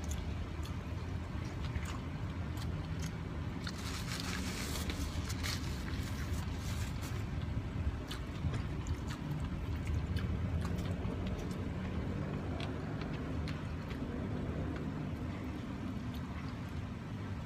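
Close-up eating sounds: a man chewing and smacking as he eats rice and stewed taro leaves with his fingers, small clicks and squishes scattered throughout. A steady low rumble runs underneath, with a brief hissing rustle about four seconds in.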